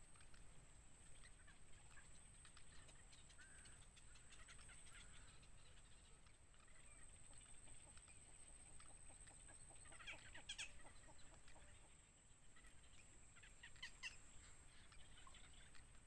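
Faint cheeping from bittern chicks in a reed nest: two short clusters of quick chirps, about ten seconds and fourteen seconds in. A thin, steady high tone runs beneath them.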